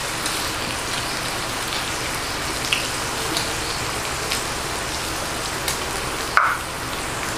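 Pork belly sizzling on the grill plate of an electric steamboat grill, a steady crackling hiss, with a few light clicks and taps from chopsticks and spoon, the most noticeable one near the end.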